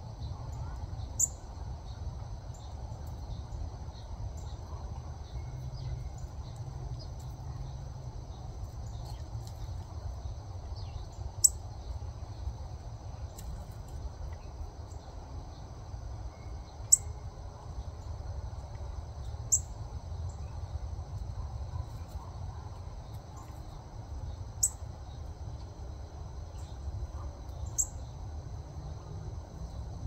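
A steady, high insect drone over a low rumble, broken six times at irregular intervals by a single sharp, high chip call from a northern cardinal.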